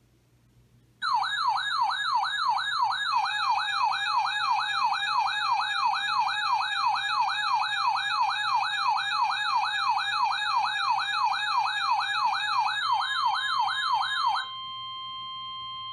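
An electronic siren warbling quickly, its pitch rising and falling about three times a second, starting abruptly about a second in and running for roughly thirteen seconds. It gives way to a quieter steady tone that holds for about two seconds and then cuts off.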